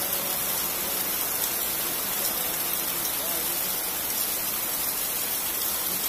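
Heavy rain falling steadily on leaves and ground, an even, unbroken hiss.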